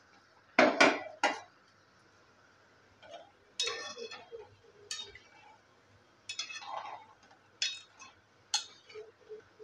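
Metal ladle clinking and scraping against an aluminium kadai while turning urad dal vadas in hot oil during their second frying. Three sharp knocks come about half a second in and are the loudest; shorter clinks and scrapes follow on and off.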